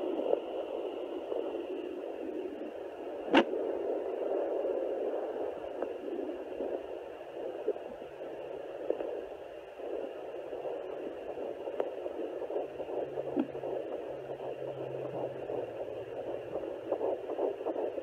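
Sonoline B pocket fetal Doppler's speaker giving out a steady hiss and whoosh as its 3 MHz probe is slid over gelled skin, with a sharp click about three seconds in. Near the end a fast pulsing beat starts to come through: the fetal heartbeat being picked up at about 11 weeks of pregnancy.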